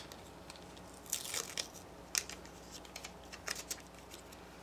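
Thin plastic film seal being peeled from a clear plastic eyeshadow blister pack: faint, scattered crinkles and crackles.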